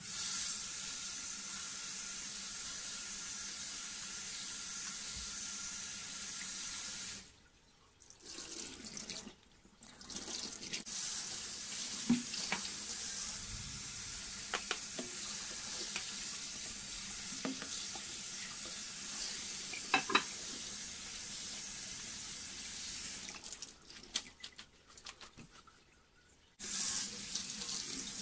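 Kitchen tap running into a stainless steel sink while julienned daikon is rinsed in a bowl, a steady splashing hiss. The water stops briefly twice, about a third of the way in, and dies away near the end before running again for the scallions; a few light knocks sound in between.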